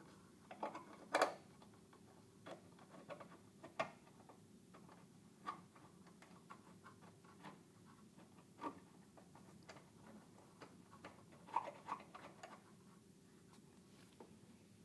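Scattered light clicks and taps of hands handling a metal oil catch can, its bracket and vacuum hoses while fitting it in an engine bay, over a faint steady hum.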